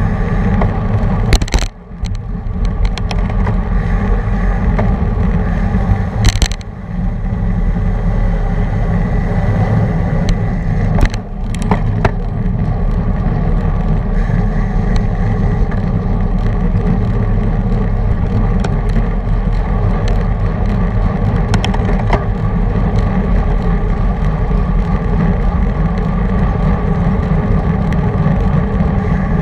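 Steady wind and road rumble on a bike-mounted action camera as it rides at racing speed in a pack of road bicycles. Three sharp knocks come in the first dozen seconds.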